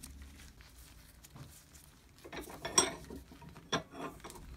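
Small metal drill-press parts being handled and set down, clinking against each other. There is a short clatter about halfway through with one loud clink, then two single clinks later.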